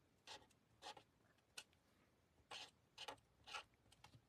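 Faint, short swishes of an alcohol blending marker's tip stroking across cardstock while colouring a small stamped image, about seven strokes, roughly one every half second.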